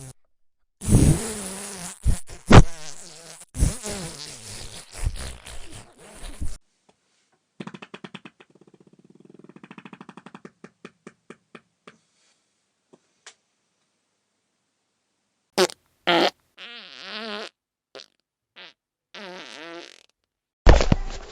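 A string of fart sound effects. First comes a long, loud raspy one with several sharp pops, then a quiet fluttering run of soft puffs, then a few short blasts and pitched, wavering toots near the end.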